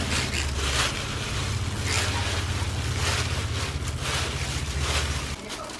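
Dry cut rice paper strips rustling and crinkling as a plastic-gloved hand tosses them around a stainless steel basin, in irregular louder sweeps. A steady low hum runs underneath and stops near the end.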